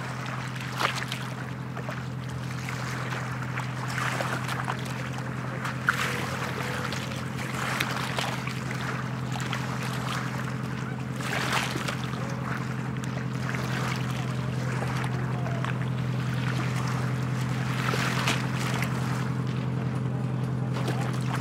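Small sailing yacht motoring under its auxiliary engine with sails down: a steady low engine hum that grows louder as the boat comes closer, with a few short sharp sounds over it.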